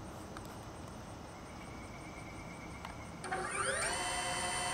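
A DJI Avata FPV drone's brushless motors spinning up about three seconds in, rising quickly in pitch and then holding a steady whine as they idle, armed before takeoff.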